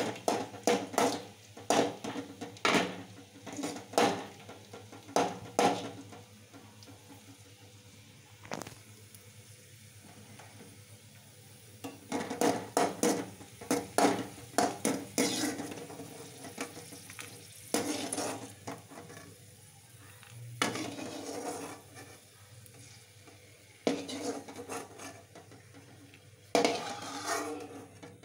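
Metal ladle scraping and knocking against a metal kadai while stirring raisins and cashews frying in ghee, with the ghee sizzling under it. Quick runs of knocks and scrapes, with a quieter stretch about a third of the way in.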